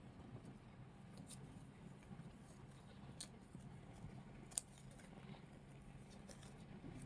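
Near silence over a low steady hum, with faint rustles and small scattered clicks as a kitten bats at a toy flower on a shaggy rug; one sharper click comes about four and a half seconds in.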